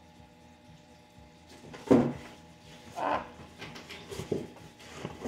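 Handling noise from reaching into a shipping box for graded comic slabs: a sharp knock about two seconds in, another about a second later, then a few lighter knocks and rustles.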